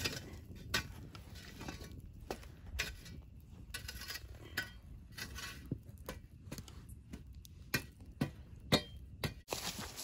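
Wood campfire crackling, with irregular sharp pops and snaps over a low rumble of the fire, as the burning logs are stirred with a stick.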